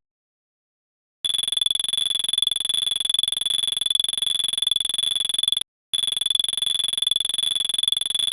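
Synthesized sci-fi weapon sound effect: a high, steady electronic buzz with a rapid even pulse, starting about a second in and breaking off for a moment about five and a half seconds in before resuming.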